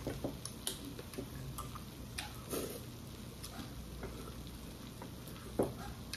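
Close-up eating sounds: scattered small clicks of chopsticks against a stainless bowl while noodles are slurped and chewed. There are two slightly louder sounds, about two and a half seconds in and near the end.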